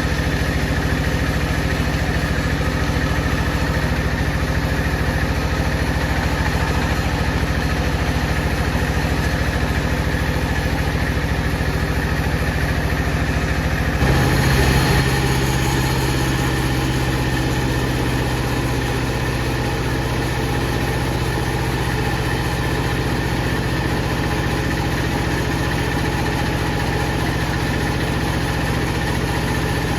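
Wood-cutting saw machinery running with a steady mechanical drone. About fourteen seconds in it briefly gets louder, then settles into a different, steadier low hum.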